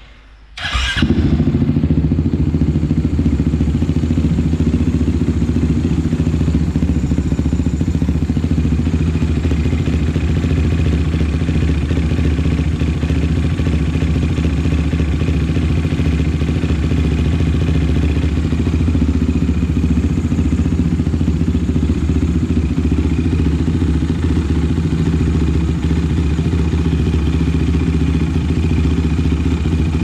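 An engine running at a steady idle with no revving, cutting in suddenly about a second in.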